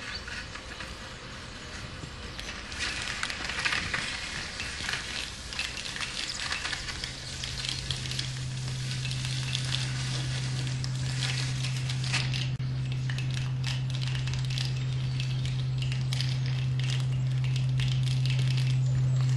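Dense crackling, sizzling noise, joined about seven seconds in by a low steady hum that grows slowly louder.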